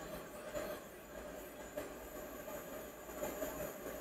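Hot air rework station blowing without a nozzle onto a phone's sandwich board to reflow its solder balls: a faint steady rush of air with a low hum, and a few faint ticks.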